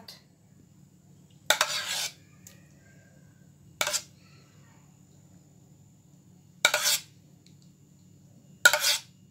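A spoon scraping and knocking against dishware four times, each stroke short and sharp-edged, while béchamel sauce is spread over a lasagne.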